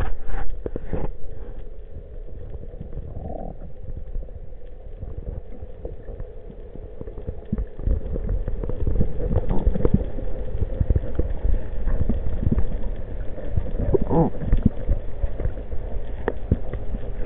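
Underwater noise picked up by a camera in its waterproof housing: a muffled low rumble with many irregular clicks and knocks, which grow denser and louder from about eight seconds in.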